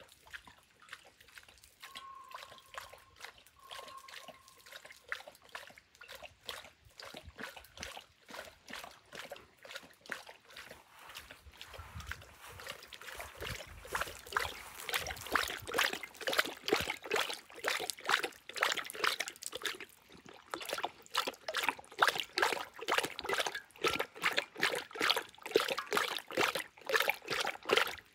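A Saint Bernard lapping water from a birdbath bowl with quick, regular laps, several a second. The laps get louder about halfway through.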